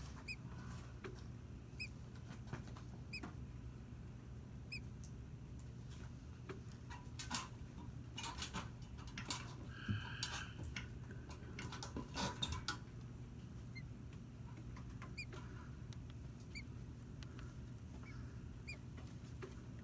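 Scratchy rustling and clicks from a robin's nest, the brooding American robin shifting over her chicks, loudest in the middle, over a steady low hum. A faint short chirp recurs every second or so.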